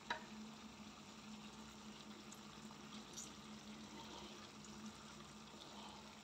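Pot of potatoes and moongray simmering softly on the stove, a faint bubbling over a steady low hum, with one light tap right at the start.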